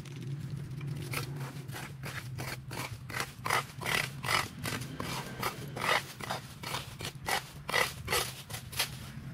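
Quick, repeated scraping strokes, about three a second, starting about a second in, over a steady low hum: a hand tool working at vegetation or ground.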